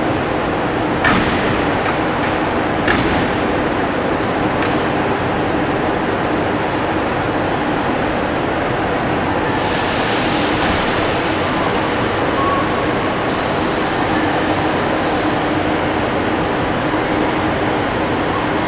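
Thalys high-speed trainset moving slowly out of the station, its electric running gear giving a steady hum and rumble. There are three sharp clacks in the first five seconds, and a few seconds of hiss about halfway through.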